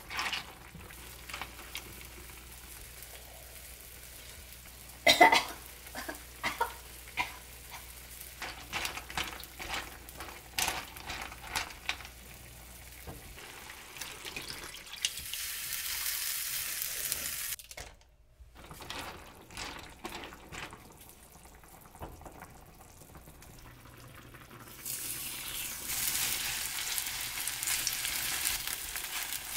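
Utensils clicking and knocking against cookware, then food sizzling in a hot frying pan. The sizzle stops abruptly about two-thirds of the way in and starts again near the end.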